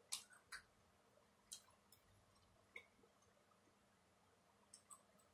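Near silence broken by a few faint, short clicks of someone eating: wet mouth and lip smacks while chewing.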